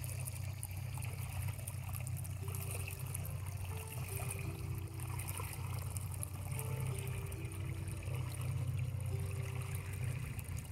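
Water trickling and rushing along the hull of a moving pontoon boat, over a steady low rumble.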